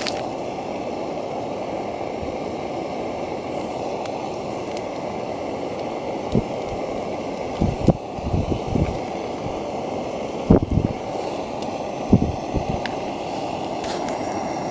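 Portable gas canister stove burner running steadily under a frying pan. A few knocks and taps come as sausages are laid in the pan, the loudest about ten and a half seconds in.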